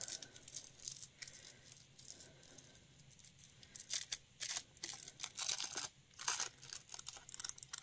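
Thin iridescent fantasy film (plastic nail film) crinkling faintly in short, irregular rustles as it is scrunched up by hand.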